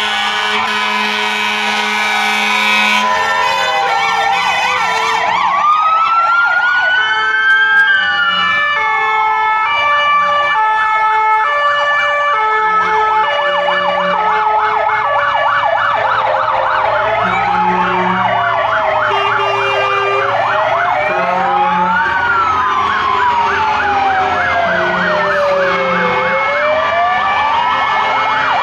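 Sirens of several fire engines passing in convoy, overlapping: slow rising-and-falling wails, fast warbling yelps and stepped two-tone hi-lo patterns sounding at once.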